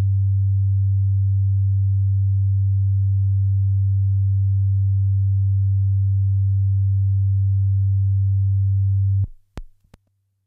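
A steady, loud, low test tone, the kind recorded at the head of a master tape for alignment. It cuts off sharply about nine seconds in and is followed by two faint clicks.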